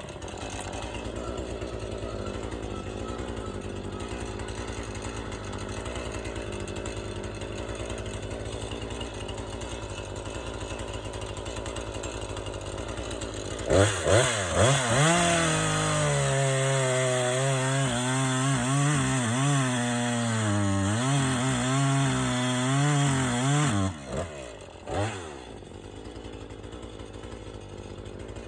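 Chainsaw idling, then revved in a few quick blips about halfway and held at full throttle for about eight seconds while bucking a white oak trunk into lengths, its pitch wavering under the load of the cut. It drops back to idle, with one more short rev, and idles to the end.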